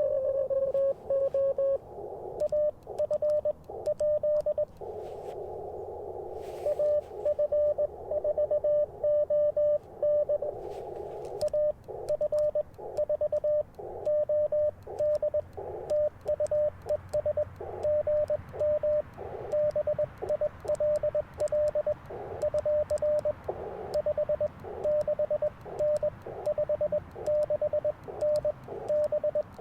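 Morse code (CW) tones from an Icom IC-705 transceiver on the 30-metre band: a single steady pitch keyed on and off in dots and dashes, with stretches of band noise between the characters.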